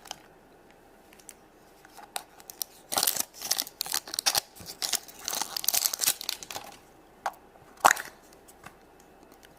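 A toy's plastic or foil wrapper being torn open and crinkled by hand, in a flurry of crackling tears a few seconds long, followed by a couple of sharp clicks.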